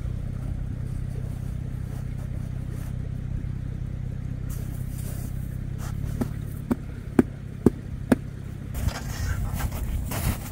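Toyota Land Cruiser's engine idling steadily, with a run of about five sharp knocks a little past the middle and a scuffling noise near the end.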